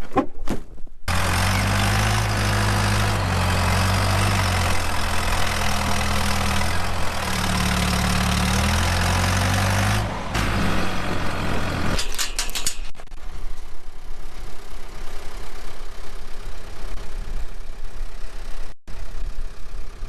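Telehandler engine running hard under load, its speed stepping up and down as it lifts hay bales. About twelve seconds in the engine hum stops, leaving a steady rushing noise.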